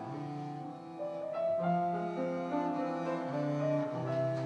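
Slow instrumental music of long held notes, a melody over lower sustained notes.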